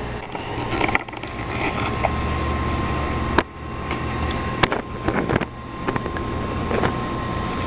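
Plastic snap clips of a laptop case clicking as the case is pried apart, a handful of sharp clicks spaced a second or two apart, over a steady low hum.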